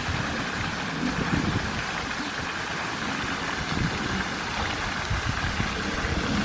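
Steady rushing noise with irregular low rumbling gusts: wind buffeting the microphone outdoors.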